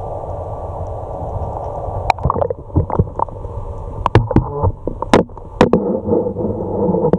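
Water heard through a waterproof action camera's microphone while it is held just under the surface: a muffled rushing, then from about two seconds in a string of sharp splashes and clicks with bubbly gurgling as water sloshes over the camera.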